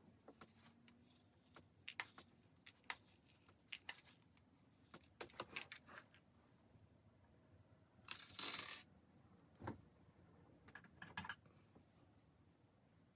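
Scattered light clicks and rattles of hair curlers and clips being handled while the hair is set, with a short hiss about eight seconds in.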